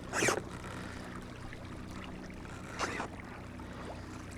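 Water splashing at a kayak, two brief splashes about three seconds apart, the first the louder, over a steady low hum.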